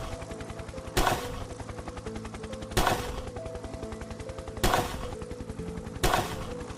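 Four single gunshots, each sharp with a short decaying tail, coming about every one and a half to two seconds, over background music with steady held notes and a fast, even low pulsing.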